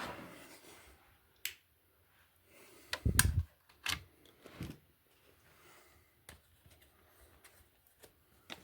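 Mains plugs and their leads being handled and pushed into a wall socket: scattered sharp clicks and knocks, with one heavier thump about three seconds in.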